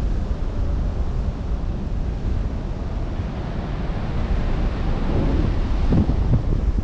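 Wind buffeting the microphone over open sea, with the wash of waves underneath. It gusts up a little about five seconds in.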